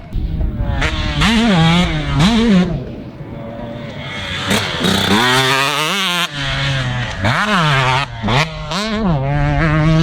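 Husqvarna two-stroke dirt bike engine revving under hard riding, its pitch climbing and dropping again and again as the throttle is opened and chopped through the gears.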